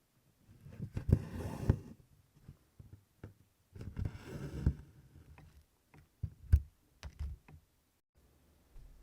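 Needle and DMC cotton floss being worked through 24-count cross-stitch fabric in tent stitch: two soft rustling pulls of thread through the cloth, each about a second long, then a few small sharp ticks of the needle against the fabric.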